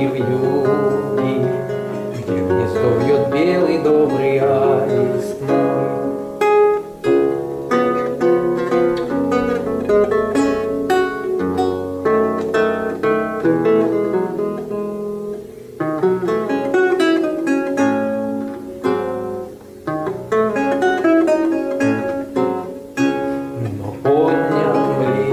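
Ten-course Renaissance lute played solo: plucked single-note lines and chords, with short breaks between phrases. A man's voice sings along at the start and again near the end.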